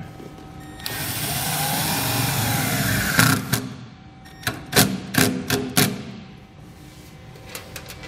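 Cordless drill driving a self-tapping screw into the sheet-metal truck bed. The motor runs for about two seconds, its pitch rising and falling, then stops with a sharp knock. A few quick clicks follow around the middle.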